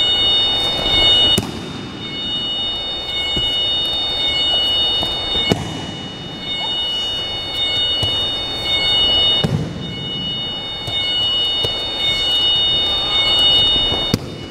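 Aikido breakfalls: a thrown attacker's body hits the mat four times, about every four seconds, each a sharp slap-and-thud, one of them with a longer low rumble. Underneath runs steady background noise with a thin, high, steady whine.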